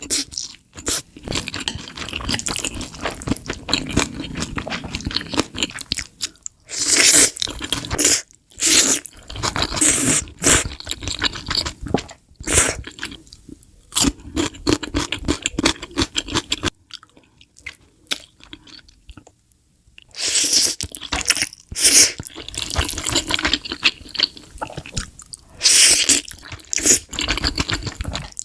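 Close-miked eating sounds: crunchy bites and chewing of crisp food, one person after another, with a quieter pause about two-thirds of the way through.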